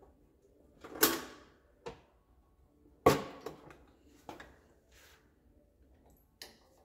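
Sharp clanks and rattles of the tractor engine and its hoist chain being handled as the engine hangs over the frame: two loud clanks about a second and three seconds in, each ringing briefly, with a few lighter clicks between them.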